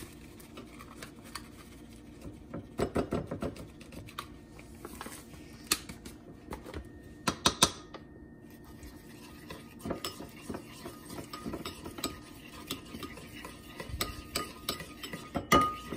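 Metal spoon stirring a thick lime glaze of powdered sweetener in a ceramic bowl, scraping and clinking against the sides in short spells.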